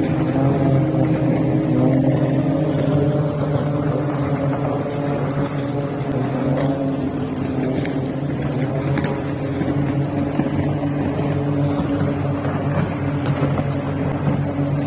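Motorboat engine running steadily, a low hum at a near-constant pitch.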